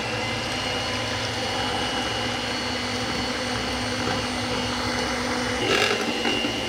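Moulinex electric hand mixer running steadily, its twin beaters half-whipping cream with powdered sugar in a plastic bowl. A brief louder rattle comes about six seconds in.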